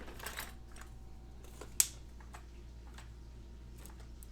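Light clicks and taps from handling an opened Master Lock padlock and tools, with one sharper click a little under two seconds in.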